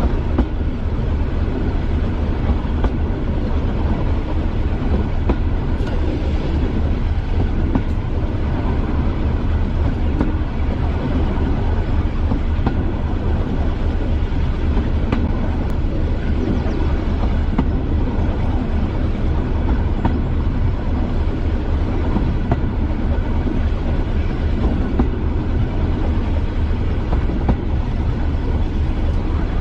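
British Rail Class 205 'Thumper' diesel-electric multiple unit under way, its English Electric four-cylinder diesel engine running with a steady, deep, rapid throb over the rumble of the train on the track.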